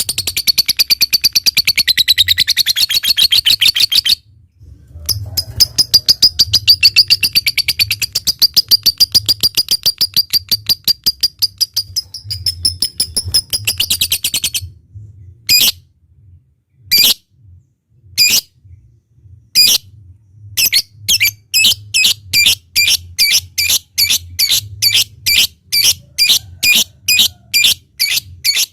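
A lovebird calling in long runs of rapid, shrill chirps, the chattering 'ngekek', broken by a short pause about four seconds in. After about fifteen seconds it changes to single sharp notes a second or so apart, then an even run of about three notes a second, the ticking 'ngetik' call.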